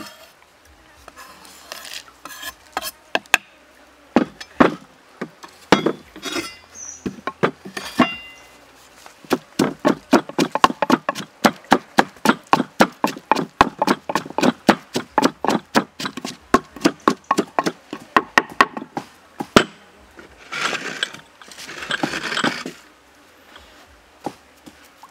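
Wooden pestle pounding red chilies and garlic in a wooden mortar: a steady run of knocks at about four a second, after a few scattered knocks as the chopped pieces are scraped off a wooden board into the mortar. Near the end come a couple of seconds of rough scraping.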